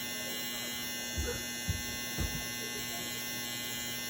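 Electric hair clippers buzzing steadily, with three short low thumps about a second in.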